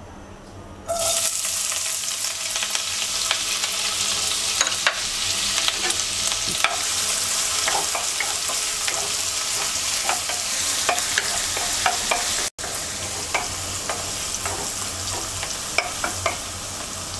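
Chopped onions hitting hot oil in a non-stick karahi, bursting into a sizzle about a second in and frying steadily after. A wooden spatula stirs them, with scattered small taps and scrapes against the pan.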